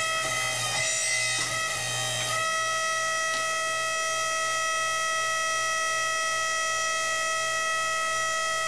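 Hydraulic forging press's pump whining steadily at one fixed pitch. Its tone shifts a few times in the first two seconds, then holds steady.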